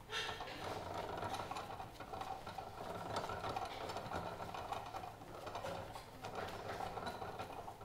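Chopped raw doner meat being squeezed and pressed by gloved hands onto the doner stack: a continuous wet, crackly packing sound that stops near the end.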